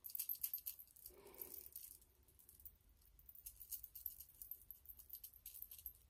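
Faint, scratchy rustling of a big fluffy makeup brush being swept and buffed across the skin in quick repeated strokes.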